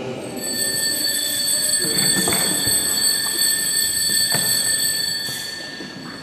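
Altar bells ringing steadily at a high pitch at the elevation of the chalice during Mass, fading away near the end, with a few soft knocks underneath.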